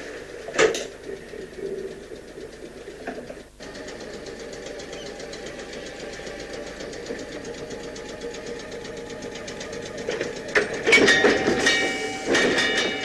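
Class 302 electric multiple unit creeping forward to couple up: a steady hum with a rapid even ticking from the moving unit. About ten seconds in come a louder clatter of knocks and squealing as the Buckeye couplers meet and the unit stops.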